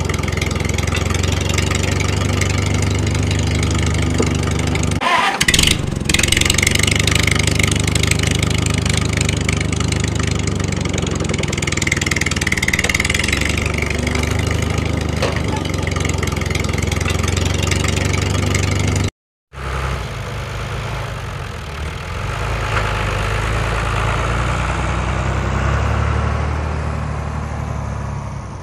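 Tractor engine running steadily with a low, even drone and a brief clatter about five seconds in. It cuts out completely for about half a second around two-thirds of the way through, then carries on and fades a little near the end.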